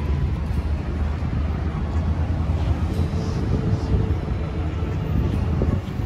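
Outdoor roadside ambience: a steady low rumble of traffic on the road mixed with wind on the microphone.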